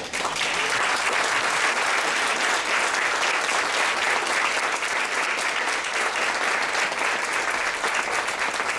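Audience applauding: many people clapping together in a steady round.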